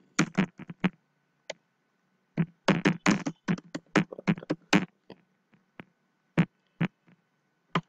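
Typing on a computer keyboard: quick runs of key clicks, a dense flurry about two and a half seconds in, then a few scattered single clicks.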